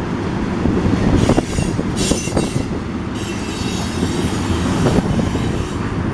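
Black ethanol tank cars of a Norfolk Southern freight rolling past close by: a steady rumble of steel wheels on rail with clacking over the rail joints. A high wheel squeal comes in a few times, longest from about three to five seconds in.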